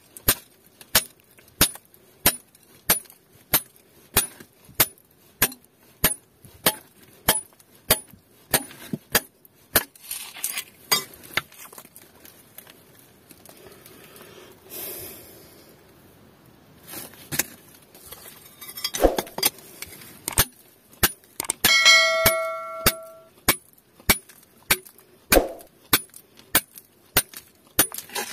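Hand hammer striking a steel chisel bar into rock to chip out gold ore: sharp metallic clinks about twice a second, stopping for a few seconds midway. One blow, about three quarters of the way through, rings on with a clear metallic tone.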